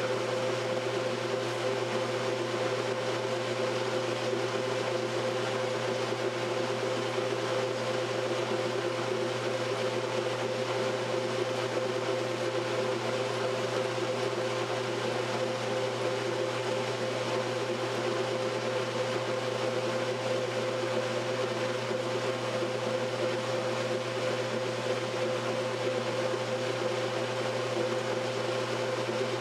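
1968 Kenmore top-loading washer agitating a load: its motor and agitator drive run with a steady, even hum and the wash water churns.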